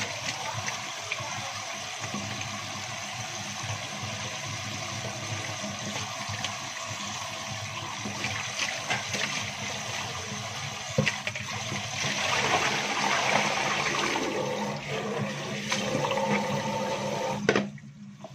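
Kitchen tap running onto spinach leaves being rinsed by hand, the water splashing into a plastic basin. The splashing gets louder for a few seconds past the middle, with a single knock about eleven seconds in, and the water cuts off suddenly near the end as the tap is shut.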